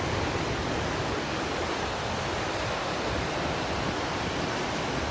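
Roar of the Gullfoss waterfall on the Hvítá river, heard close up: a steady, dense rush of falling water.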